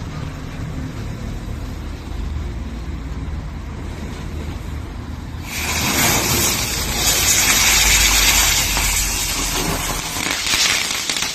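A 'magic shaking ball' ground firework fizzing quietly at first. About five and a half seconds in it bursts into a loud, steady hiss of spraying sparks with some crackle, which dies down near the end.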